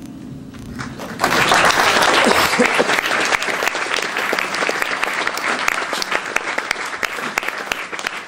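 Audience breaks into applause about a second in, with a few voices calling out, and keeps clapping after a jazz tune ends.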